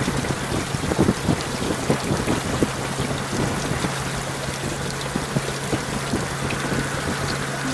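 Heavy rain striking close to the microphone on a moving Honda Goldwing GL1800 motorcycle: dense, irregular ticks of raindrops over a steady rush and a constant low hum.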